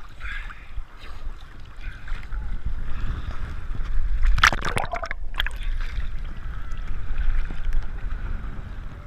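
Small sea waves sloshing and lapping against a camera held at the water's surface, over a low rumble of water and wind on the microphone. About four and a half seconds in there is a loud splash as a wave washes over the camera, briefly muffled just after.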